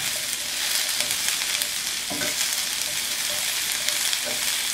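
Sliced bell peppers and onions sizzling in olive oil in a hot grill pan, with a steady hiss. Tongs tap against the pan a few times as the strips are turned, once about two seconds in and again near the end.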